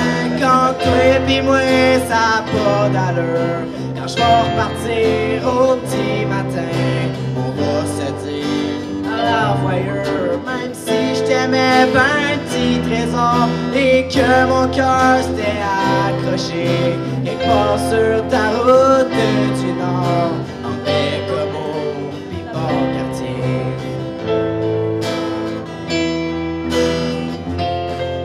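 Small live band playing a song: a young male singer over strummed acoustic-electric guitar, electric keyboard and electric bass.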